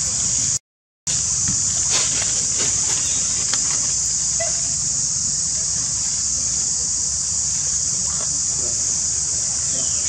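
Steady, high-pitched insect chorus over a low rumble. It cuts out for about half a second near the start.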